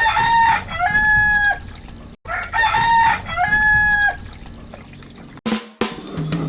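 Rooster crowing twice, loud and clear, each crow about a second and a half long and ending on a long held note.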